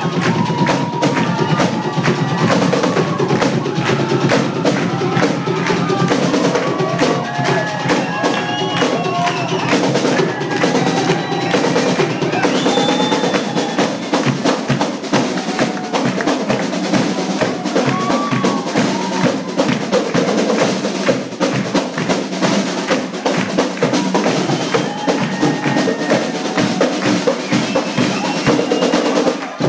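A drum group playing live: dense, fast snare and bass drum patterns with rolls that run without a break.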